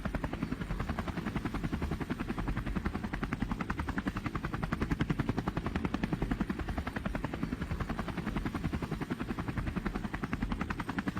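Helicopter rotor running with a rapid, even pulsing beat of the blades.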